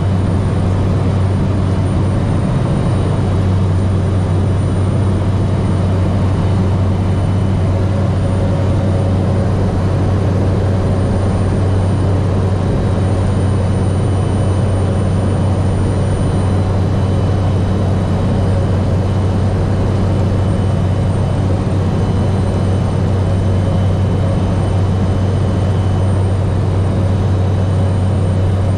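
Cessna 208 Grand Caravan's single PT6A turboprop engine and propeller running steadily in flight, heard from inside the cockpit as a loud, even drone with a deep propeller hum, on the descent to land. A faint high steady whine joins in about a third of the way through.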